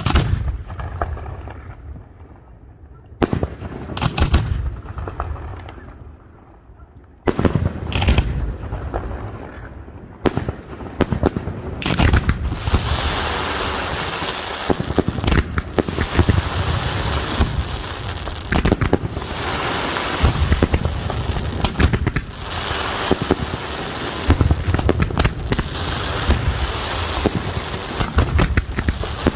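Aerial fireworks display: for the first twelve seconds or so, single shell bursts go off a few seconds apart, each bang trailing off. Then a dense, continuous barrage of bangs and crackling builds and keeps going.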